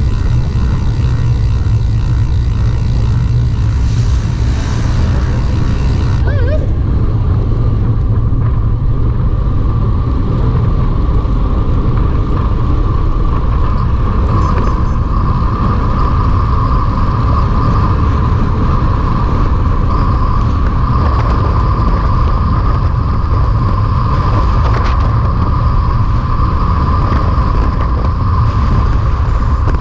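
Wind rumbling on the microphone with tyre and road noise from a road bike riding along. A thin steady whine joins in about six seconds in.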